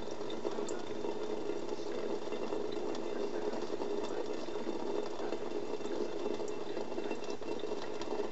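A thin stream of tap water running steadily into a stainless steel kitchen sink near the drain.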